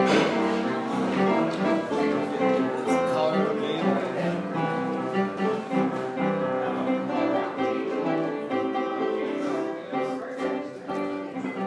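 Background music with plucked guitar, played over the video's closing.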